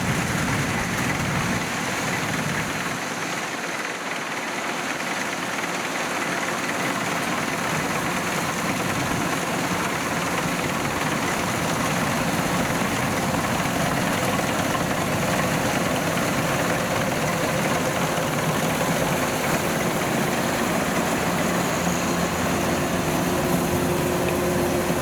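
Kubota DC-93G rice combine harvester running steadily while cutting rice, its diesel engine and machinery making a constant dense drone.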